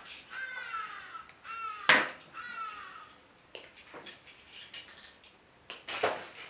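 A bird calling three times in quick succession, each call a short falling note, with a sharp knock about two seconds in and scattered light clicks afterwards.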